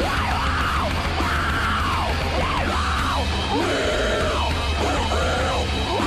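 Loud rock music with a steady heavy bass and a repeating swooping high line that rises and falls about once a second.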